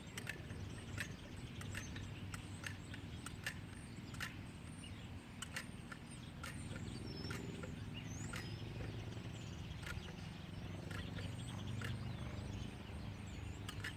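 Quiet outdoor background: small birds give short chirps now and then over a steady low hum, with scattered light clicks throughout.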